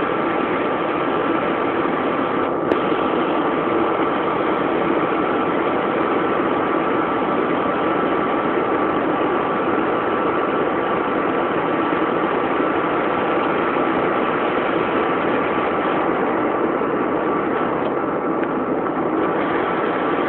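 Steady in-cabin engine, wind and road noise of a Ford Mondeo held at about 190 km/h, with a constant high whine over the rush. A single click sounds about two and a half seconds in.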